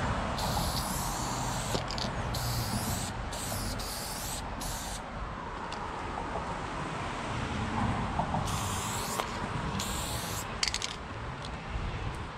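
Aerosol spray paint can fitted with a New York fatcap, hissing in a series of short sprays about a second long, separated by brief gaps, with a pause of about three seconds in the middle. A steady low rumble runs underneath.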